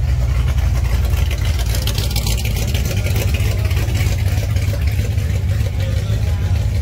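Car engine running steadily at idle, deep and unchanging.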